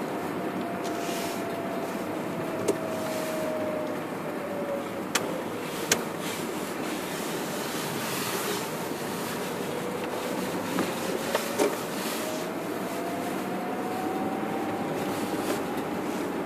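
Car driving on snow-covered streets: steady tyre and road noise, with an engine tone that falls over the first few seconds and rises again later on. A few sharp knocks stand out.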